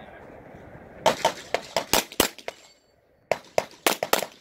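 Pistol shots fired in rapid strings during a practical-shooting stage: about six shots in just over a second, a short pause, then four more near the end.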